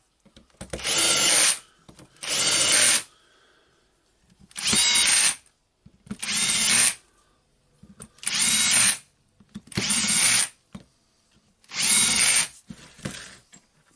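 Power drill-driver running in seven short bursts of about a second each, driving the housing screws back into a cordless impact wrench.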